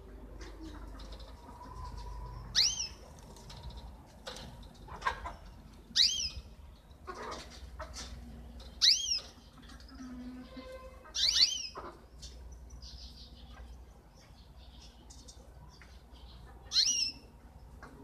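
Caged zebra finches calling: about five loud, short calls a few seconds apart, each rising sharply and then dropping back, with fainter chirps and some wing flutters between them.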